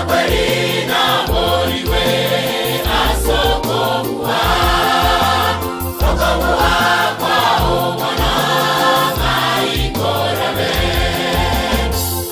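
Mixed choir singing a gospel song in several voice parts over a bass line and a steady beat.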